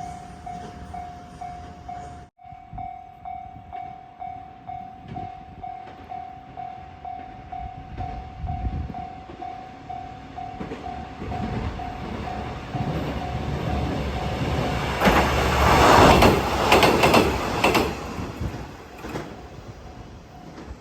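Level-crossing warning bell ringing in an even, repeated ding while a two-car KiHa 120 diesel railcar approaches. The railcar passes over the crossing about fifteen seconds in: engine and wheel clatter swell to the loudest point, drowning out the bell, then fade.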